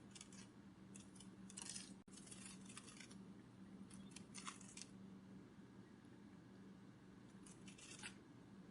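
Faint, dry fluttering rustles of a butterfly's wings, coming in short crackly clusters about four times, over a low steady hum.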